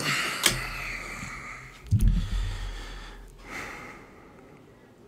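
A man breathing out heavily right at a close microphone, the sound fading over about a second and a half, then a low thump about two seconds in and a second, shorter breath.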